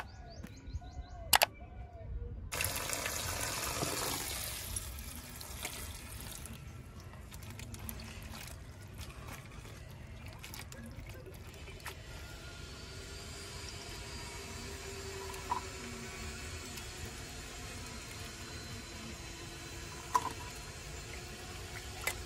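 Two sharp clicks, then water poured into a steel bowl and banana flower florets swished and rubbed by hand in the water, with small splashes and clinks against the bowl. The pouring is loudest a few seconds in, and the swishing goes on more quietly after it.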